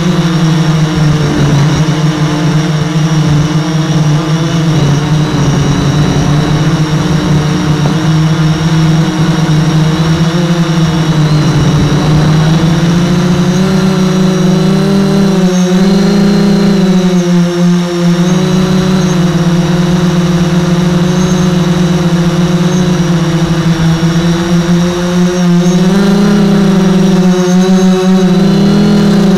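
The motor of a radio-controlled model boat, heard up close from on board, running steadily with a low hum over the rush of the drive. Its pitch rises and falls a few times as the throttle changes.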